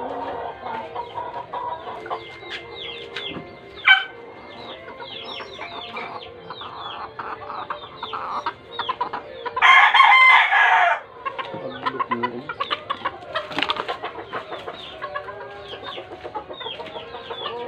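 Chickens clucking and calling in quick short notes, with a brief loud call about four seconds in. A rooster crows loudly for a little over a second around the middle.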